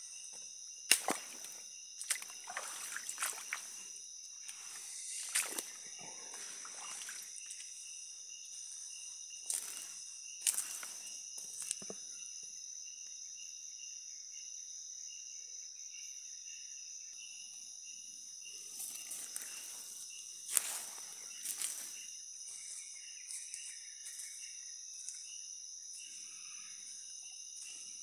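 Footsteps on a wet, muddy, leaf-covered forest trail, coming in bursts: through the first several seconds, again around ten seconds in and around twenty seconds in. Under them, a steady high-pitched drone of rainforest insects.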